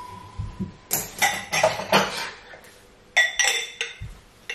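Dishes and metal kitchenware clinking and clattering in two short runs of sharp, ringing clinks, about a second in and again near the end.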